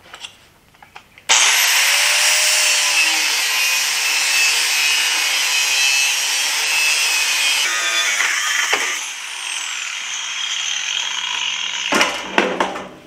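Angle grinder starting up about a second in and cutting through the steel wall of a gas cylinder: a loud, steady grinding with a high whine. It eases off later and stops near the end, with a few knocks as it is set down.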